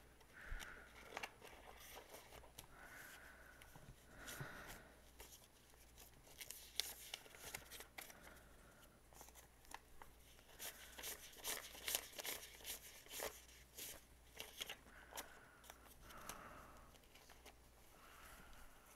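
Quiet rustling and flicking of paper banknotes being handled and counted, with soft crinkles from the binder's plastic pockets. The flicks come thick and fast for a few seconds past the middle.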